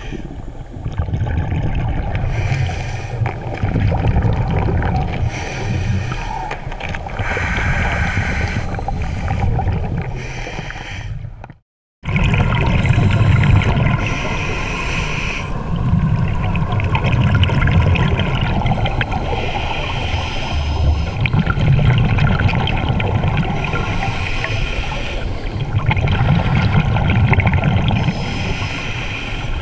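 Scuba divers' breathing underwater: repeated low surges of gurgling exhaust bubbles from the regulators, with a higher hiss now and then. The sound cuts out completely for about half a second near the middle.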